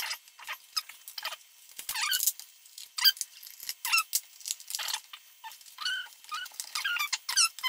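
A quick, uneven run of small clicks and high, short squeaks as screws and small plastic cable connectors are worked loose on an iMac's power supply board.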